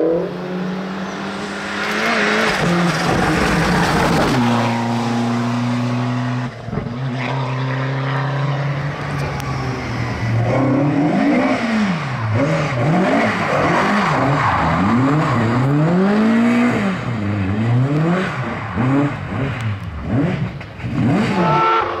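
Rally car engines at full throttle: a car accelerates hard away, its note rising, then holds a steady high-revving note. From about ten seconds in, an engine revs up and down in quick repeated sweeps, about once a second, with another car's engine coming in near the end.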